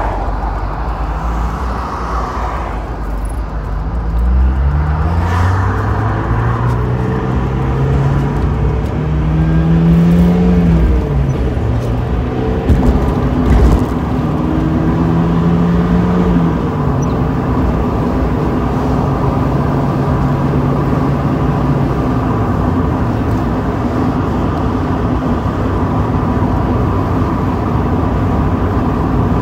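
Mazda Miata's four-cylinder engine accelerating through several gears, each rise in pitch broken off by a shift, then holding a steady cruise. Heard from the open cockpit with the top down, under a steady rush of wind and road noise.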